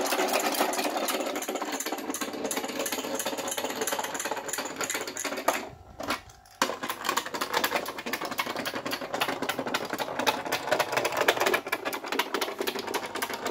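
Matchbox Shufflie Farm playset's battery motor running, its plastic track mechanism giving a fast, even clatter as the toy animals shuffle along the grooves. The clatter cuts out for under a second about six seconds in, then starts again.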